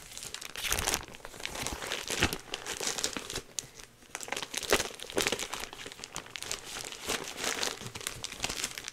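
Crinkling and rustling as a cross-stitch project and its wrapping are handled, irregular throughout, with a few louder crackles about two seconds in and near the middle.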